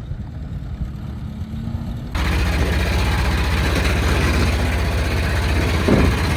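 1929 Ford Model A's four-cylinder engine running as the car is driven off-road. The sound turns abruptly louder about two seconds in.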